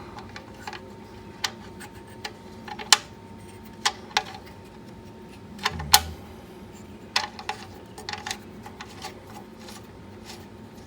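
Scattered light metallic clicks and taps, irregular and a second or so apart with a few quick clusters, from the oil drain plug and hand tools being handled while the plug is put back into the oil pan; a duller knock about halfway through.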